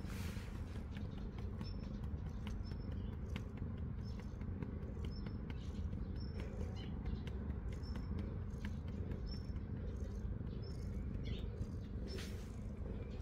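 Quiet outdoor background: a steady low rumble, short high chirps of small birds about once a second, and light rubbing and ticks from a hand stroking a cat's fur.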